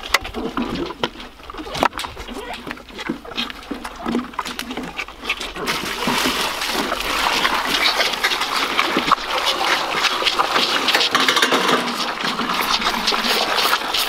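Milk being poured from a plastic bucket into a calf feeding trough: a steady splashing pour that starts about six seconds in. Before it, scattered knocks and clatter as the bucket is lifted and the calves crowd the feeder.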